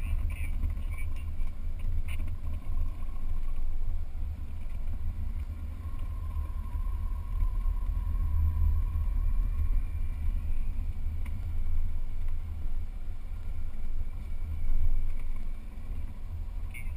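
Off-road 4x4 driving over soft desert sand, heard from a camera on its hood: a continuous deep engine and wind rumble that rises and falls in loudness.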